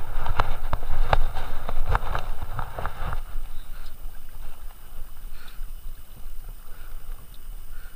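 Irregular knocks and thumps for about three seconds as a small fish on a line is brought aboard a small fishing boat and handled. After that there is a quieter wash of water and wind.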